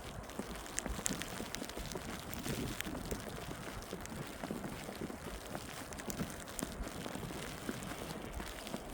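Footsteps crunching through fresh snow, over a steady background hiss, with a few sharp clicks.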